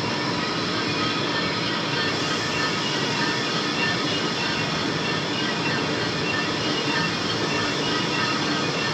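Lathe running steadily while cutting a pinion gear: an even machine drone with faint steady high ringing tones over it.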